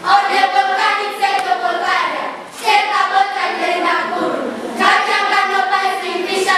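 A group of children singing together in unison, in three sung phrases with a short break between each.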